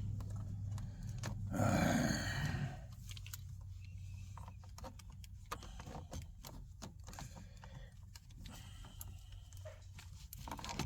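Small clicks and scrapes of a multi-tool prying at a plastic inside door-handle bezel on a car's door trim, with a loud rough burst lasting about a second near the start.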